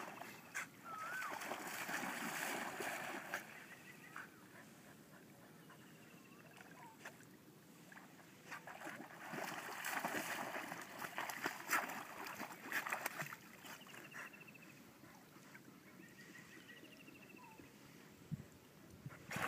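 A husky running through shallow lake water, splashing in two bouts, the second and louder about nine to thirteen seconds in.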